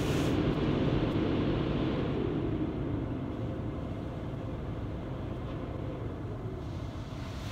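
Automatic car wash going over a car, heard from inside the cabin through the moonroof glass: a steady rushing rumble of the wash brushes and water on the roof, loudest in the first two seconds and then easing slightly.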